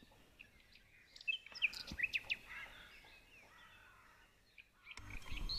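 Songbirds chirping faintly in short, quick notes, busiest a little over a second in, with a low rumble coming up near the end.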